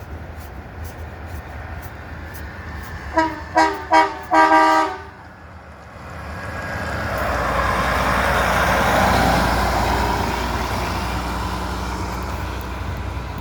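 Truck horn honking four quick times, the last blast the longest. Then a vehicle passes with a rush of road noise that swells and slowly fades.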